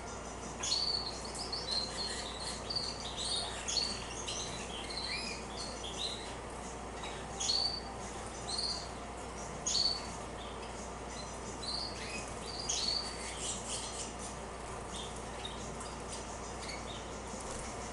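Several female canaries giving short chirping call notes, scattered irregularly, some overlapping, over a steady low background noise.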